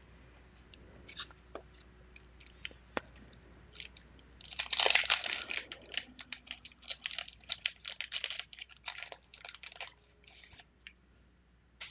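A 1991 Fleer basketball card pack being torn open by hand. The wrapper crackles and crinkles for about five seconds, starting with a loud rip about four and a half seconds in, after a few light clicks of the cards being handled.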